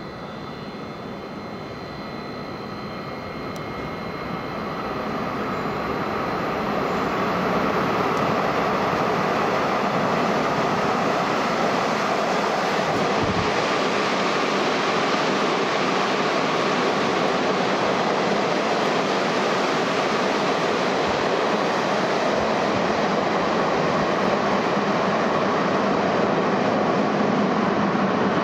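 JR 201-series electric commuter train running through an underground station at speed without stopping. Its rumble grows louder over the first seven seconds or so as it approaches, then becomes a steady, loud roar of wheels and motors that rings off the station walls as the cars pass. A faint high whine at first fades away as it nears.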